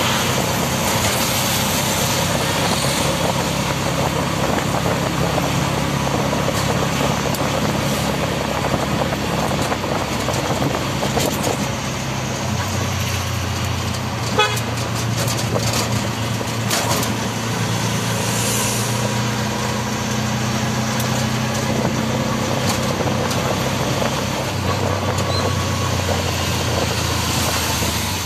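Auto-rickshaw's small engine running steadily under way, heard from inside the open cabin with road and traffic noise. Its drone drops in pitch about twelve seconds in and again near the end as the speed changes, with horns tooting in the surrounding traffic.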